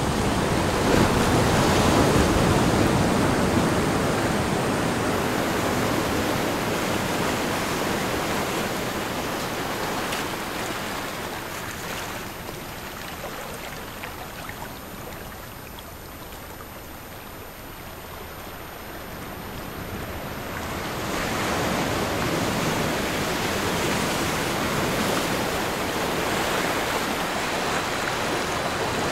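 Ocean surf recording: a continuous rush of waves that eases into a quieter lull in the middle and swells back up about two-thirds of the way through.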